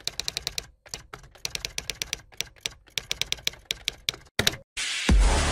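Typing clicks: rapid runs of keystrokes at about eight a second, broken by short pauses, as text is typed out. Loud electronic dance music with a heavy bass comes in suddenly about five seconds in.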